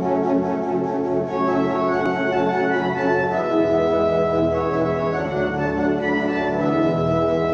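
1913 Rühlmann pipe organ (opus 366) playing sustained chords on its 8' and 4' foundation stops, the chords changing every couple of seconds. The organ is only pre-voiced and not yet fully tuned.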